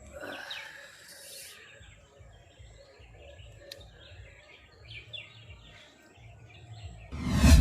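Birds chirping in short calls, with soft low thumps underneath, then a sudden loud noise near the end.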